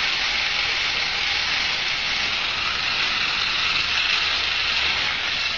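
Battery-powered cotton picking machine running with a steady, high hiss.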